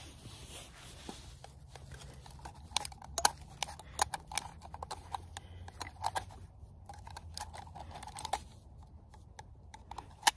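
A knife blade cutting through the thin wall of an aluminum drink can, a run of sharp clicks and scrapes as the can is turned against the blade, busiest in the middle of the stretch.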